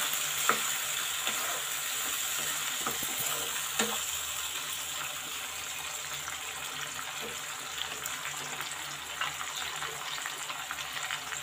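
Chopped tomatoes sizzling in hot oil in a non-stick kadhai, the frying hiss easing slightly over the seconds. A couple of knocks of the spatula are heard as the pieces are stirred.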